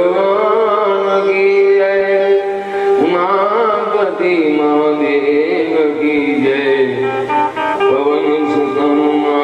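Hindu devotional music: a voice singing a bhajan in long, wavering held notes over instrumental accompaniment.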